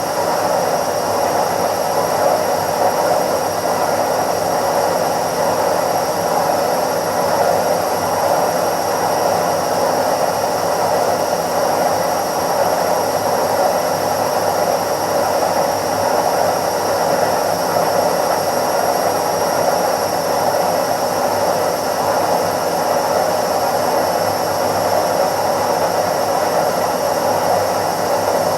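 Indesit IWC71252 front-loading washing machine on its spin cycle: a steady, even rushing whir of the spinning drum and motor, with a faint high whine held on top.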